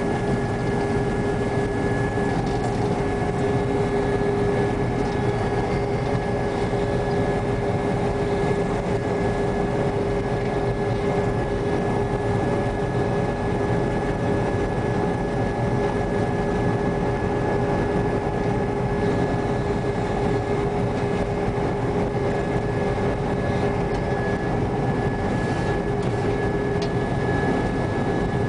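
New Holland TR95 combine running steadily under load while cutting and threshing wheat: a constant engine and machinery drone with a steady high whine over it.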